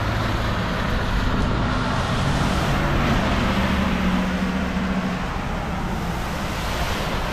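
Cars and SUVs driving through a flooded road, tyres swishing through standing water over a low engine hum.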